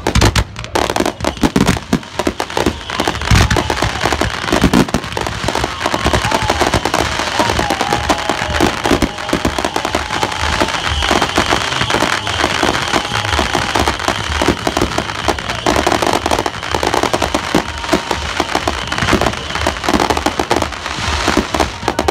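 Red Apple Fireworks consumer fireworks firing in a continuous string of launch thumps, pops and crackling bursts, with heavier thumps now and then.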